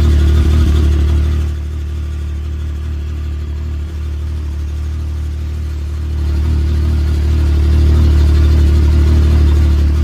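Can-Am side-by-side's engine idling steadily with a low, even hum, growing louder about six seconds in.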